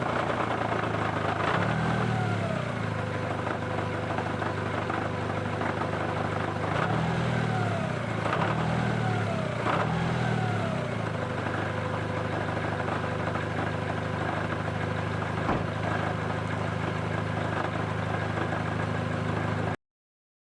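Daihatsu Copen driving, its engine running steadily, with a whine that glides down in pitch several times. This is the running noise the owner is chasing, which he suspects comes from the differential, a driveshaft or a hub bearing. The sound cuts off near the end.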